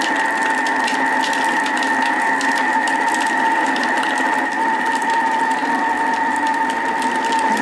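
Thermomix food processor running with a steady high-pitched whine, while its blade grinds with a fine crackle as it chops meat and ice into sausage batter.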